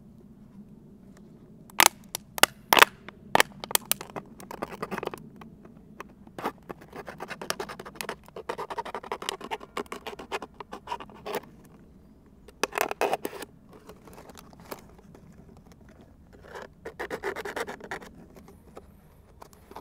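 Thin ribbed plastic water bottle being handled and notched by hand. A few sharp clicks and crackles of the plastic come about two seconds in, followed by several stretches of scratching and scraping.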